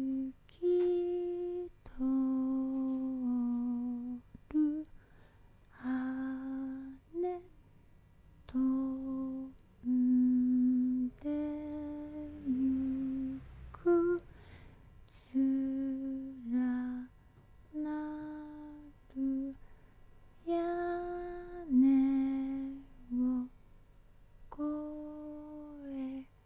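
A woman's voice humming a slow, sparse melody of short held notes, each up to about a second long, with brief pauses between them.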